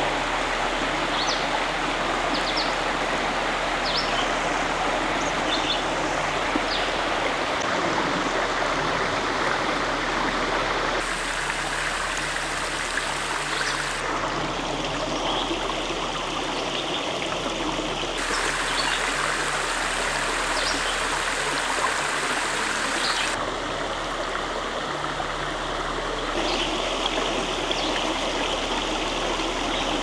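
A creek flowing, a steady rush and babble of water whose tone shifts abruptly a few times.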